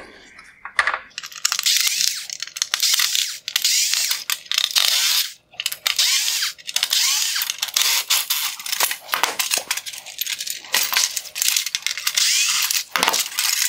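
Cordless electric screwdriver running in repeated short bursts, backing out small T15 Torx screws from a headlight's LED bezel.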